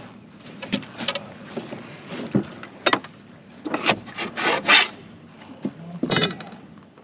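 Scattered knocks, clicks and brief rustles of handling on a fishing boat.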